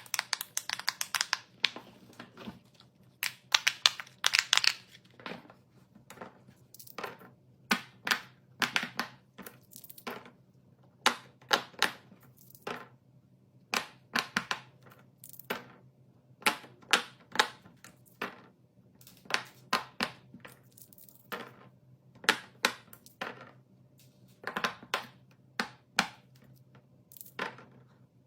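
Crafting materials handled up close for a DIY pop-it fidget toy: short crinkling and crunching noises in irregular clusters, about one every second or two, over a faint steady hum.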